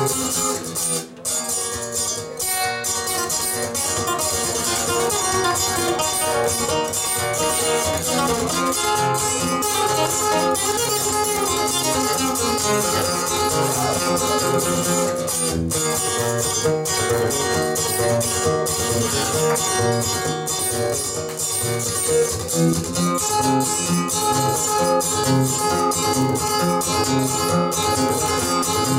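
Solo acoustic guitar played live as an instrumental passage, plucked notes ringing on steadily in a repeating pattern, with a short break about a second in.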